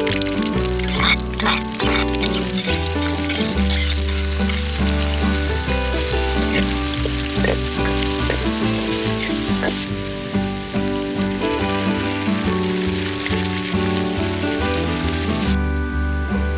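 Tofu cubes sizzling in hot oil in a steel wok, stirred and scraped with a steel ladle, with a few sharp clinks in the first couple of seconds. The sizzle drops off suddenly near the end, when the tofu is sitting in sauce. Steady background music plays underneath.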